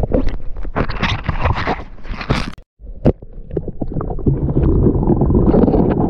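Water splashing around the camera. From about three seconds in, a muffled, steady underwater rumble and gurgle of river water with the camera's microphone submerged.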